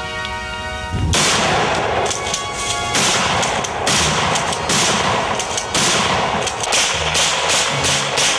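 Music for the first second, then rapid gunfire: many shots in quick succession, some running together.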